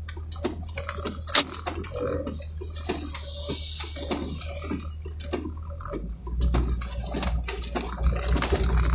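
Raindrops hitting a vehicle's roof and windshield, heard inside the cabin as a stream of separate drips over the vehicle's low running hum, which grows louder about six seconds in.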